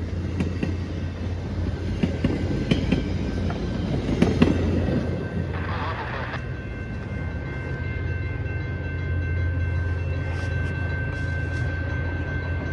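VIA Rail passenger cars rolling by on steel wheels, with a steady low rumble and sharp clicks of wheels over rail joints. A thin steady high tone comes in about eight seconds in, after the last car has gone through the crossing.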